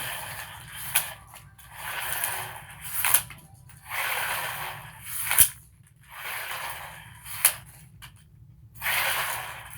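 Tape measure blade being run out and retracted over and over: about five sliding whirs, each about a second long, most ending in a sharp snap or click. The loudest click comes about five and a half seconds in.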